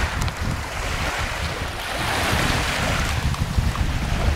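Gentle Baltic Sea waves lapping and washing onto a sandy beach, a steady wash of surf, with wind buffeting the microphone in a low, gusty rumble.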